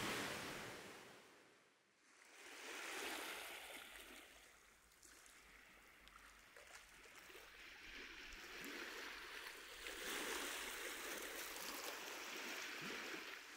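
Faint, gentle waves washing onto a rocky shore. The sound drops out for about a second near the start and for a couple of seconds in the middle, then comes back.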